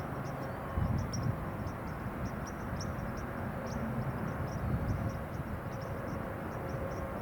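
A steady low outdoor rumble that swells now and then, with small birds chirping in short, high, repeated notes throughout.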